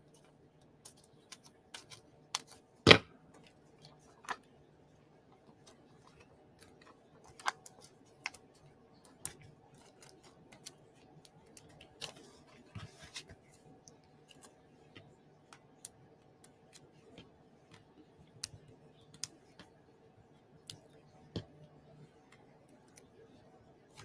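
Scissors cutting cardstock in scattered, irregular snips and clicks, with a sharper click about three seconds in, over a faint steady hum.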